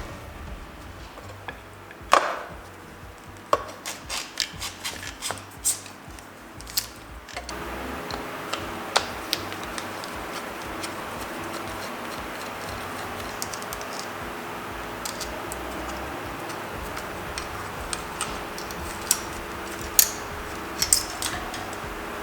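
Scattered clicks, taps and knocks of hand tools and metal parts being handled while a dirt bike is taken apart. The knocks come thick in the first seven seconds and more sparsely after, with a few sharper knocks near the end.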